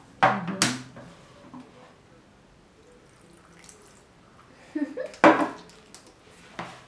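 Hands squishing and mixing crumbly dough in a plastic bowl. There are two louder, sharp bursts of rubbing and knocking against the bowl, about half a second in and about five seconds in, with softer rustles between them.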